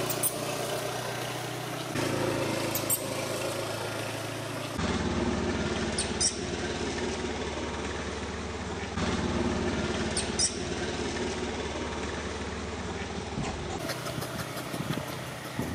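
A steady engine hum, its pitch and level shifting abruptly a few times, with two pairs of brief high chirps about six and ten seconds in.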